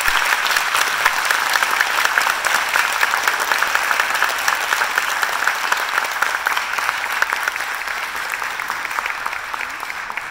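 Audience applauding: dense, steady clapping that eases off slightly near the end.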